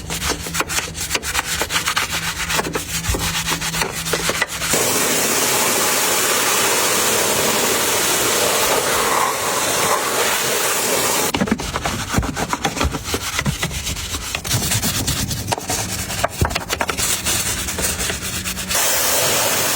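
Car-cleaning sounds: quick rubbing and scrubbing strokes over a faint low hum, broken by a steady hiss for about six seconds from about five seconds in. The scrubbing comes back, and the hiss returns near the end.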